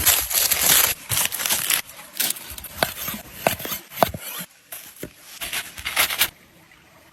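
Irregular scraping and rubbing handling sounds with sharp clicks, which stop about six seconds in.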